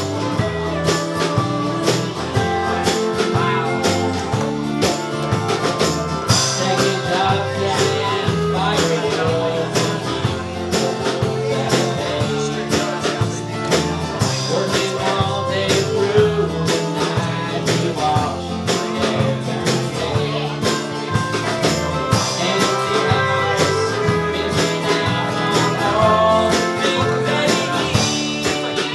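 A folk-bluegrass band playing live: strummed acoustic guitar, bowed viola and electric bass, in a steady up-tempo groove.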